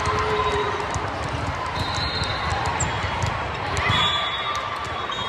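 A volleyball rally in a large, echoing gym: the ball is struck by hands and forearms several times, and sneakers give short squeaks on the hardwood court.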